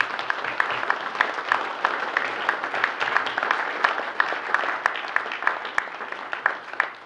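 Congregation applauding: many hands clapping in a dense, uneven patter that dies away near the end.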